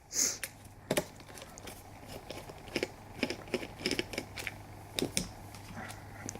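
Irregular small clicks and taps of plastic trim, switch modules and wiring being handled as the steering-wheel control switches are taken off, over a steady low hum.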